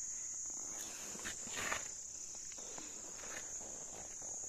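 Insects trilling in a steady high-pitched hum, with a few faint rustles and scuffs about a second in.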